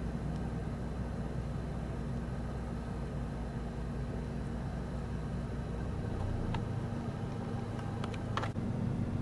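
An engine running steadily with a low hum, its pitch shifting about six seconds in, with a few faint clicks near the end.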